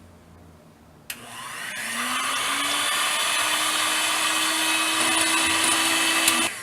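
Electric mixer whipping chilled heavy cream toward stiff peaks. A click about a second in, then the motor spins up with a rising whine, runs steadily, and cuts off suddenly near the end.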